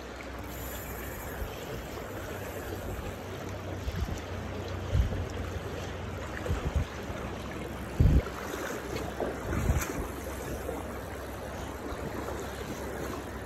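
Steady rush of flowing river water, broken by a few short, dull low bumps.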